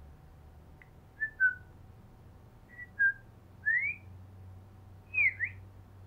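Someone whistling short, pure notes: brief falling pairs about a second in and again about three seconds in, then a rising whistle, and a quick down-and-up whistle near the end.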